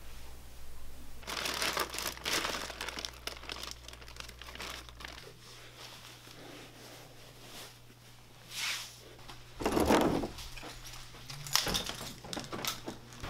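Irregular rustling and crinkling handling noise in scattered bursts, the loudest about ten seconds in with a dull thud in it, over a faint steady hum.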